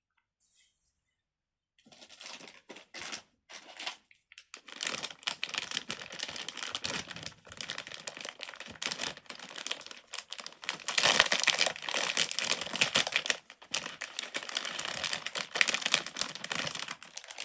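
Silicone pop-it fidget toy being pressed bubble after bubble: a few separate pops about two seconds in, then from about five seconds a fast, dense run of small pops and clicks.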